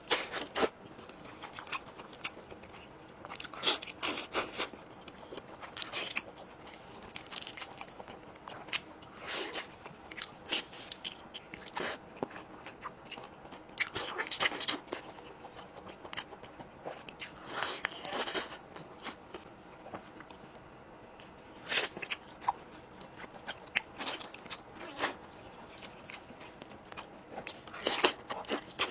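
Close-miked biting and chewing of crispy chicken, with irregular crackling crunches from the skin coming in clusters every second or two.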